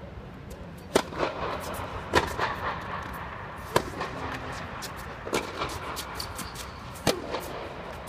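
Tennis balls struck with rackets in a rally: a sharp hit every one to one and a half seconds, with fainter clicks between the hits.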